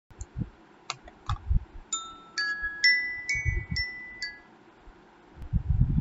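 A short run of about seven bell-like chime notes, each ringing briefly, after a few sharp clicks. Low thumps sound now and then underneath.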